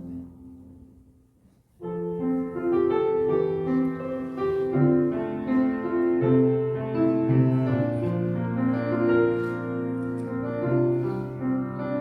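Piano playing the introduction to a hymn. Chords and a melody start abruptly about two seconds in, after a faint fading note.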